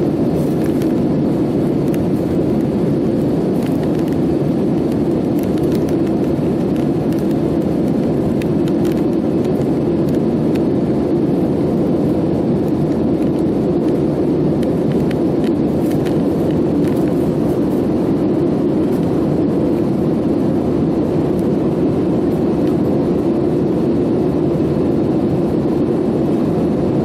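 Steady low drone of a jet airliner's passenger cabin in flight, engine and airflow noise heard from inside, holding an even level throughout.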